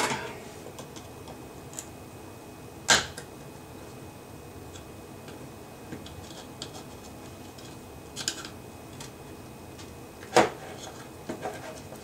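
A plastic refrigerator timer case being pried at with a thin metal pick: two sharp clicks, about three seconds in and near the end, with a few light ticks of handling between.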